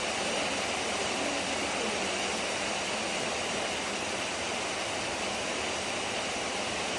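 Steady rain drumming on a corrugated zinc roof, an even dense hiss of drops with no let-up.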